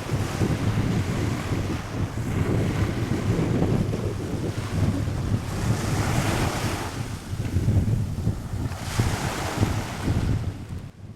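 Wind buffeting the microphone over ocean surf, with two waves washing in about six and nine seconds in.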